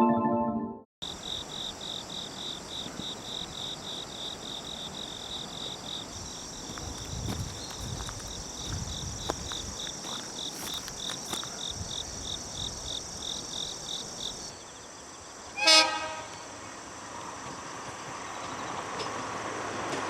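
Insects chirping in an even pulse of about three chirps a second. About 16 seconds in, a train horn sounds one short, loud blast, followed by a rising rush of noise near the end.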